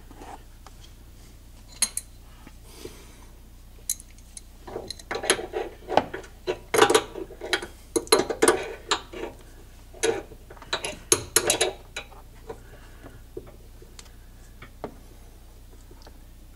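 Metal tow hook and wrench clicking and clinking in irregular bunches as the hook is turned into position and tightened on its bumper mount. The clicks are busiest through the middle stretch.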